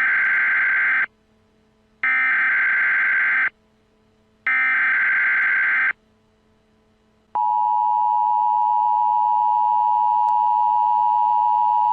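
Emergency Alert System header: three roughly one-second bursts of SAME digital data tones, evenly spaced, then about seven seconds in the steady two-tone EAS attention signal (853 and 960 Hz) begins.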